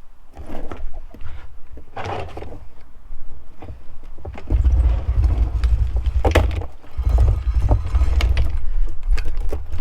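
Irregular metallic clicks and clinks of an O-ring motorbike chain being handled and pulled off the rear sprocket, with a steady low rumble coming in about halfway through.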